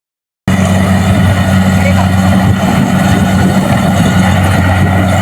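Kubota DC-70 combine harvester's diesel engine running steadily under load, with a low hum and the rattle of the harvesting machinery; it starts suddenly about half a second in.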